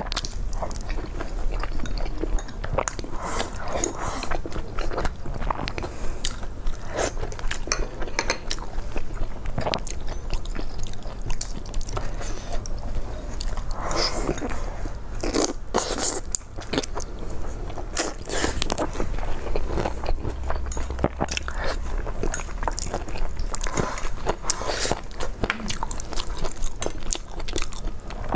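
People eating close to a clip-on microphone: biting into and chewing dumplings and braised chicken wings, an irregular, continuous run of small mouth clicks.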